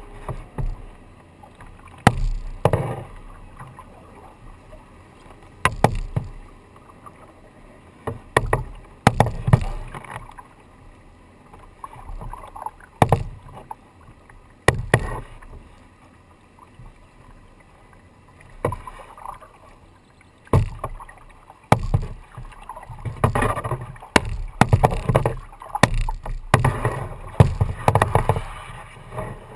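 Plastic sit-in kayak being paddled with a double-bladed paddle: splashing strokes and water dripping off the blades, with irregular sharp knocks of the paddle against the hull, coming thicker near the end.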